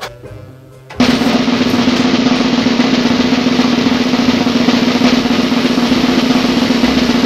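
A loud snare drum roll, used as a sound effect, starts abruptly about a second in and runs on steadily over a held low tone.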